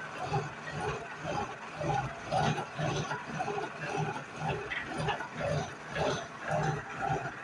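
Milling machine running on a rack-gear cut, with a rough mechanical grinding that swells and fades in a regular pulse about once a second.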